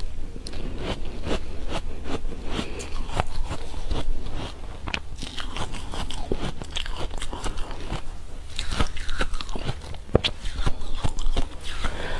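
A mouthful of frozen ice from an ice cake being bitten and chewed: a close run of crisp crunches and cracks as the ice breaks between the teeth.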